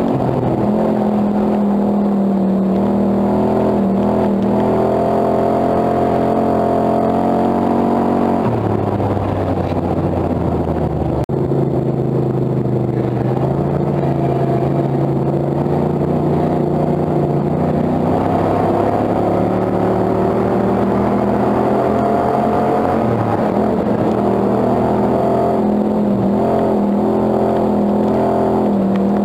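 Hobby stock dirt-track race car's engine heard from inside the cockpit, running hard at speed. About eight seconds in, the pitch drops as the car slows. Some ten seconds later it climbs back up as the car accelerates again.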